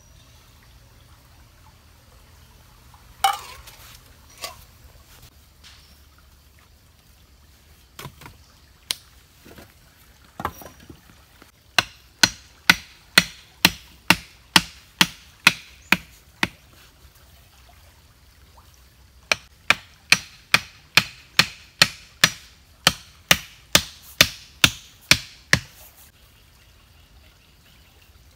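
A hand tool striking repeatedly: a few single knocks, then two even runs of about a dozen sharp blows each at roughly two a second. A faint steady flow of river water runs underneath.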